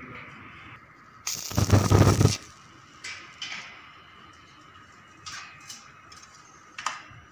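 Electric arc welder striking an arc on the steel staircase frame: a crackling, buzzing burst about a second long, starting a little over a second in. Afterwards a few light metal clicks and knocks from handling the steel.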